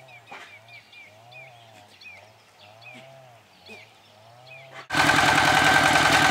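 Faint, repeated chirping for the first few seconds. About five seconds in, a walking tractor's single-cylinder diesel engine cuts in loud and steady, with its rotary tiller churning dry soil.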